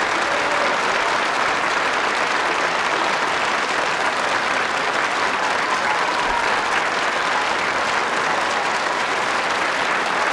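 A large theatre audience applauding steadily, many hands clapping together.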